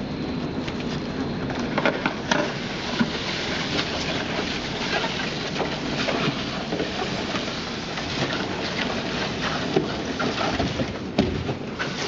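A painted cardboard box being dragged across a hard floor: a steady scraping noise broken by frequent small scuffs and knocks as it catches and shifts.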